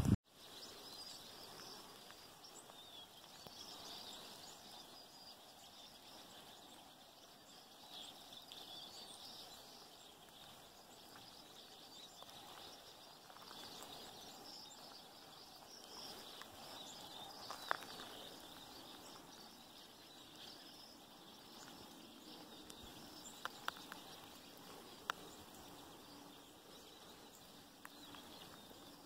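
Faint outdoor ambience with scattered faint bird chirps and a few sharp clicks in the second half.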